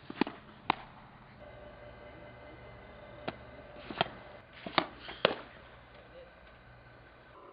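A series of about six sharp smacks from a softball pitching session, typical of the ball popping into the catcher's leather mitt, over a faint steady background hum.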